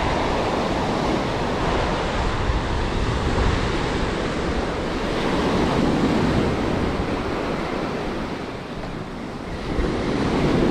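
Ocean surf breaking and washing up a sand beach: a steady rushing that swells and ebbs with the waves, dipping for a moment about nine seconds in before the next wave comes in loudly.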